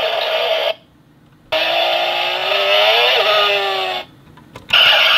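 Bandai DX Tridoron toy car's electronic sound effects playing through its small built-in speaker, triggered by short presses of its sound button. Three separate clips of car-like sound follow one another with short silent gaps; the middle one has a tone that rises and then falls.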